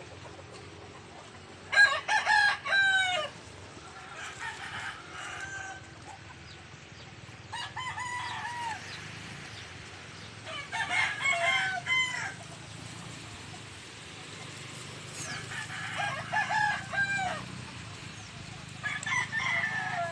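Roosters crowing repeatedly: about six crows of one to two seconds each, some louder and some fainter, over a steady low background.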